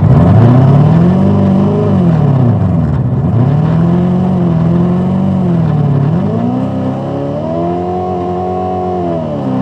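Engine sound from a retro arcade driving game, revving up and down over and over in smooth rises and falls every second or two, then holding at a higher pitch near the end.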